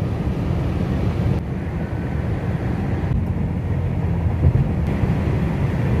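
Steady road and engine noise inside a car's cabin at highway speed: a constant low rumble with an even hiss above it.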